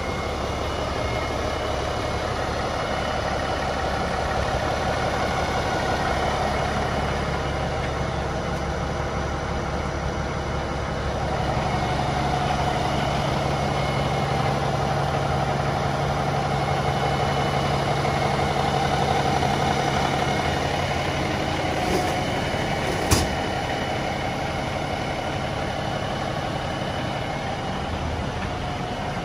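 Fire truck's diesel engine idling steadily at close range, its hum a little stronger for a stretch in the middle. Two short clicks about a second apart come late on, the second one sharp.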